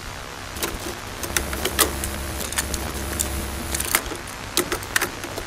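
Scattered sharp mechanical clicks over a steady hiss, with a low motor hum from about half a second in to about four seconds in.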